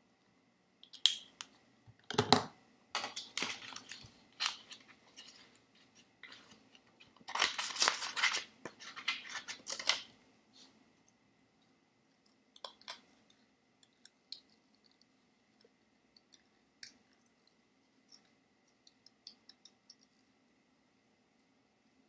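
Scissors cutting green craft paper and the paper rustling as it is handled: a louder stretch of cutting in the first half, then a run of small, sparse snips as the scissors trim out a little circle.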